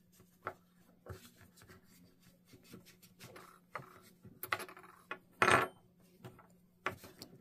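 Small metal parts of a Kenmore sewing machine, its shuttle and shuttle race cover, clicking and clinking as they are handled, in scattered light taps with one louder knock about five and a half seconds in.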